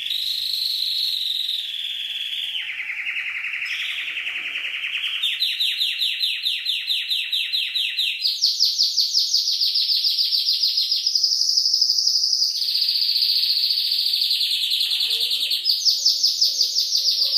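Domestic canary singing a continuous song of fast, rapidly repeated high notes. The trills jump to a new pitch every few seconds.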